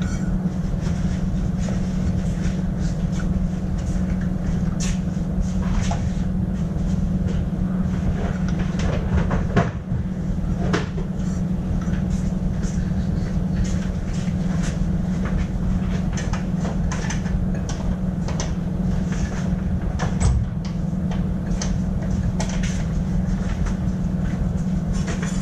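Steady low hum of workshop machinery running throughout, with scattered light clicks and knocks of metal engine parts and tools being handled on a bench.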